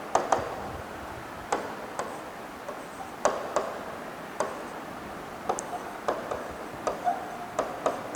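A run of about eighteen short, sharp taps and clicks at uneven intervals, over a faint steady background.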